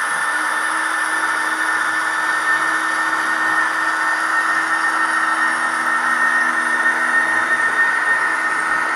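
Gauge 1 model train, a Fine Models SBB BDe 4/4 electric railcar with lightweight steel coaches, running past on metal track: a steady whirring of wheels and motor, with a low steady hum that sets in just after the start.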